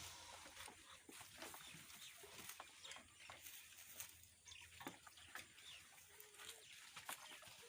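Young goat kids rustling and nibbling grass: faint scattered clicks and rustles, with a short faint bleat about six seconds in.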